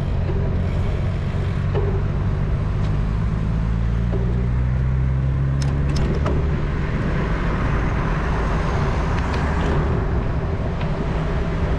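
Motor vehicle engine running steadily, a low hum with a few light clicks around the middle.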